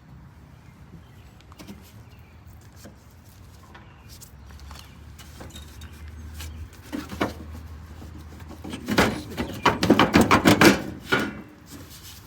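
Sheet-metal clattering and knocking as the access panel of an outdoor A/C condenser is worked loose and pulled off, loudest in a quick run of rattles and knocks about two-thirds of the way in.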